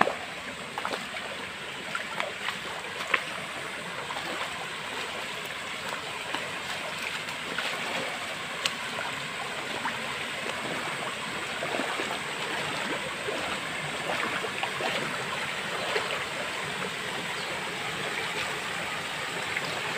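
Shallow stream running steadily over rocks and spilling over a small weir, a constant rush of water, with a few light clicks and splashes from wading in the first seconds.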